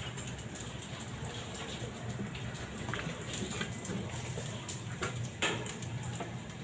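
Steady hiss of cold liquid-oxygen vapour escaping at a tanker trailer's unloading valves and hose connection, over a low steady hum, with a couple of short knocks about three and five seconds in.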